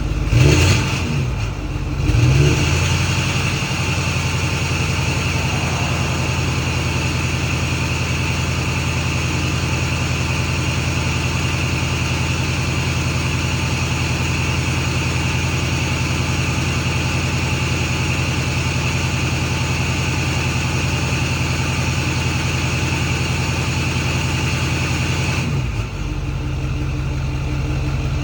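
Ford 6.4 Powerstroke V8 turbo-diesel, fitted with new billet-wheel turbochargers, held at raised revs after a few brief rev changes. It runs steadily with a steady high turbo whine, then drops back to idle and the whine stops near the end.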